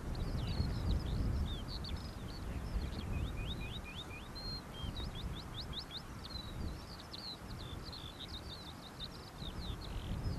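A songbird singing a long, fast, unbroken stream of varied high chirps and short sweeping notes, over the low rumble of wind on the microphone.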